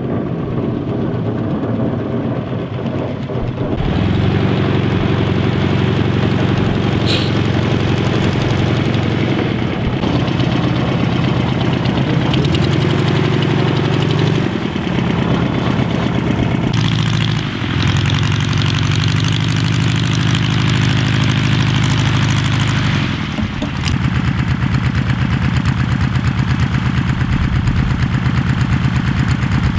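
Piston engine and propeller of a small single-engine light aircraft running at low taxiing power, a steady engine drone that grows louder about four seconds in and shifts its note abruptly a few times.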